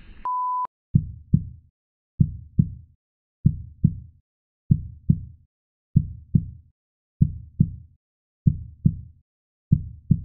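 A brief one-tone bleep, then a heartbeat sound effect: eight double low thumps (lub-dub) about one and a quarter seconds apart.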